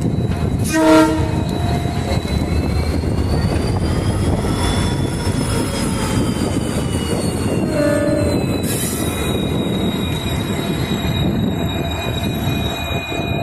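WDG4 EMD diesel-electric locomotive running along the track with a steady heavy rumble, sounding two short horn blasts, one about a second in and one about eight seconds in. A thin high whine rises and then falls in between.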